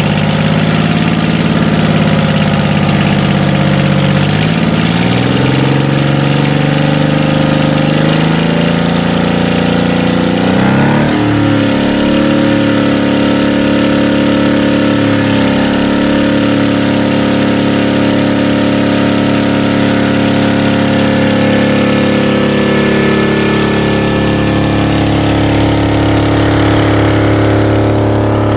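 Detroit Diesel 6V71 two-stroke V6 diesel with a Roots blower, running. Its pitch dips and rises a few times in the first dozen seconds as the revs change, then holds steady.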